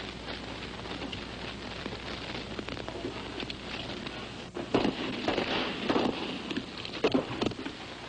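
Several gunshots in a ragged string, starting a little past halfway, over the steady hiss of worn archival film sound.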